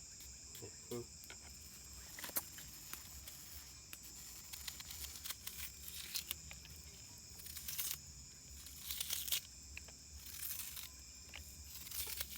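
Insects trilling steadily and high-pitched, with scattered sharp clicks and short rustling, crinkling sounds over them.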